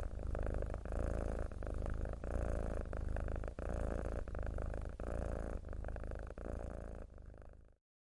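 Domestic cat purring contentedly, the purr swelling and easing with each breath about every three quarters of a second. It stops abruptly near the end.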